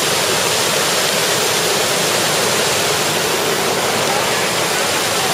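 Small waterfall and creek water rushing steadily over rocks into a pool: an even, unbroken hiss.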